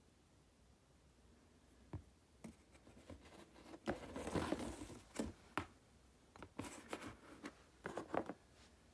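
Faint handling noises as a wristwatch and its USB charging cable are moved about on a cardboard sheet: scattered light clicks, scrapes and rustles, busiest from about four seconds in.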